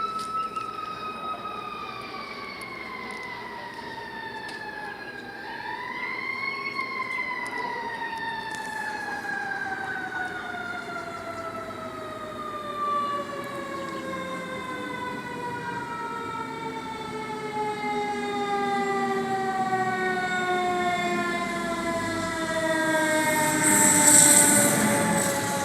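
Fire truck's mechanical siren winding down: one wailing tone falling slowly in pitch, rising briefly again about six seconds in, then coasting lower and lower. A louder burst of noise comes near the end.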